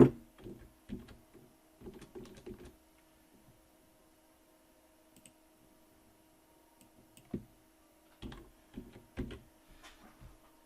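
Clicks and light knocks of a computer mouse and keyboard in short clusters: at the start, around two seconds in, and again from about seven to nine and a half seconds in, with quiet gaps between, over a faint steady hum.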